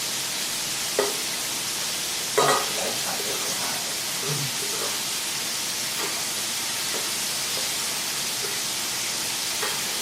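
Chicken frying in hot oil, sizzling steadily, with a couple of brief knocks about one and two and a half seconds in.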